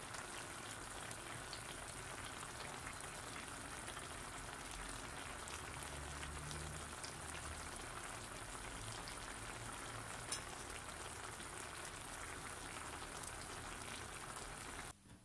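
Pan of bonito steaks, potatoes, tomatoes and green peppers simmering in oil and water on a gas hob, a steady sizzling hiss full of small pops and crackles. It cuts off suddenly near the end.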